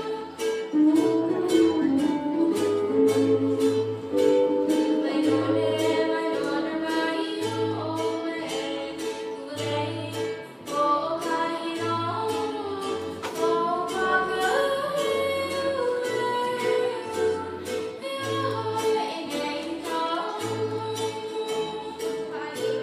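A live ukulele band playing: several ukuleles strummed in a steady rhythm over a pulsing bass line, with singing and a steel guitar's gliding melody on top.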